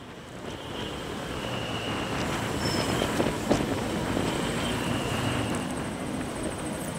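Motorcycle riding slowly along a road: steady engine note under road and wind noise, growing louder over the first second.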